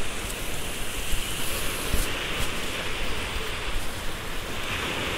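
Surf breaking and washing up the beach: a steady rush of water, with a few low wind thumps on the microphone.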